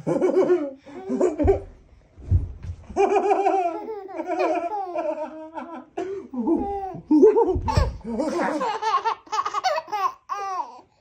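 A baby of about five months laughing, with a woman laughing along in repeated bursts, quickening into rapid pulses near the end. A few dull low thumps come in among the laughs.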